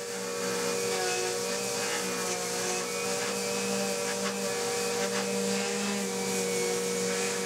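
DeWalt random orbital sander with 220-grit paper running on a rusty band saw table, together with a shop vac sucking up the rust dust through a hose held beside it: a steady whine over a hiss.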